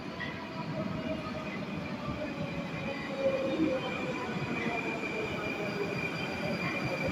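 Moscow metro train running into an underground station, its rumble and a steady high-pitched whine growing louder as it approaches.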